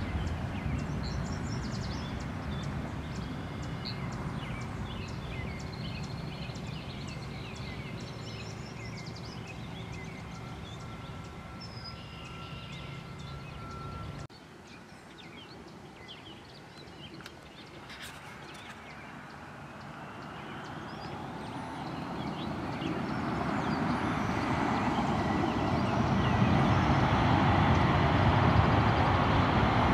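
Jet airliner engines rumbling and slowly fading, with small birds chirping. The sound drops off abruptly about halfway through, then another jet's engine noise swells steadily louder with a faint rising whine.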